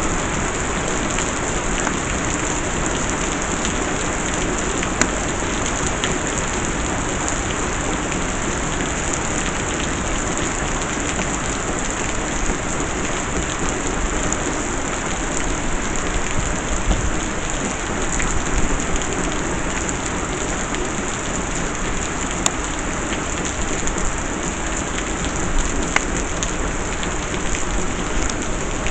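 Heavy rain falling steadily, pattering on surfaces with scattered sharper drop hits.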